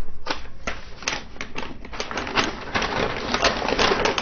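Paper and cardboard packaging being handled and rustled: a run of irregular crackles and clicks, growing denser in the second half.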